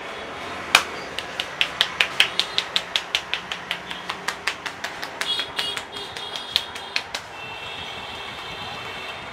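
A barber's hands tapping rapidly on a head during a head massage: a loud first strike about a second in, then about five sharp taps a second for some six seconds, stopping near the end.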